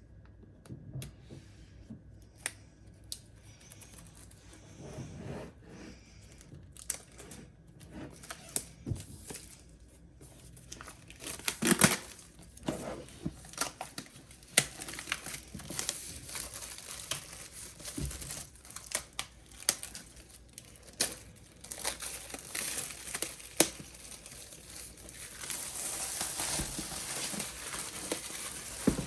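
Plastic shrink wrap being cut and pulled off a boxed laptop: a long run of crinkling and tearing with many small snaps and clicks, busiest near the end.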